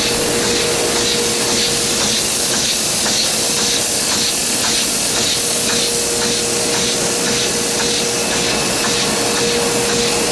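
Komori Lithrone 40 six-colour sheetfed offset press running: a steady loud hiss of air over a constant hum, with a faint, even, rapid beat.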